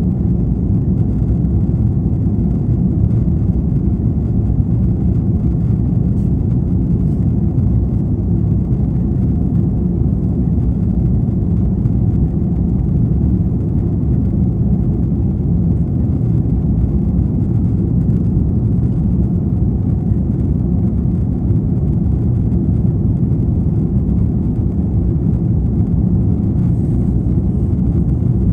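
Cabin noise inside an Airbus A330 airliner climbing out after takeoff: a steady, loud low rumble of the engines and the air rushing past the fuselage, unchanging throughout.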